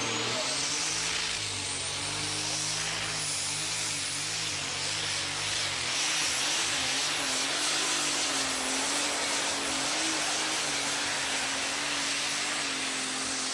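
Super stock pulling tractor's turbocharged diesel engine running flat out under load as it drags the weight-transfer sled. Its pitch wavers up and down with a high turbo whistle on top.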